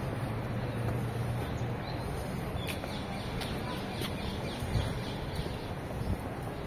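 City street ambience: a steady low hum of traffic, with a quick run of bird chirps in the middle and a single soft thump near the end.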